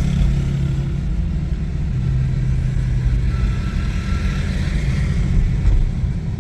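Honda BR-V's engine running while driving, with road rumble, heard from inside the car: a steady low drone whose note drops slightly about two seconds in. The engine is misfiring, which makes the car jerk.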